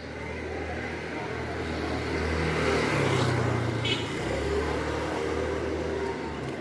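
A motor vehicle's engine running close by, a low rumble that swells over the first few seconds and then eases slightly.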